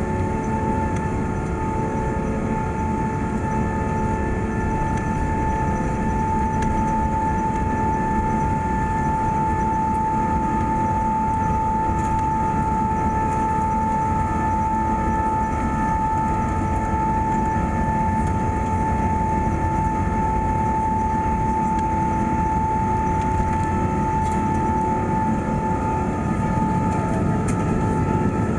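Airbus A380-800 engines heard from inside the economy cabin: a steady low rumble with a constant whine held on one pitch and fainter whines above it.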